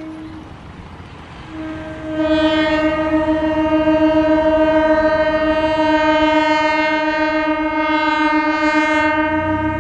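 Indian Railways MEMU electric train sounding its horn as it approaches: a brief toot, then one long steady blast from about a second and a half in.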